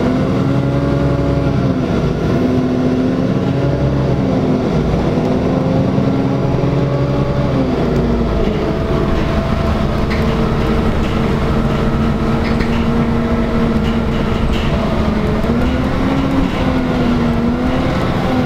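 NefAZ-5299 city bus under way, its engine and drivetrain heard from inside the passenger cabin: a steady hum over road rumble, its pitch rising and dropping back a few times.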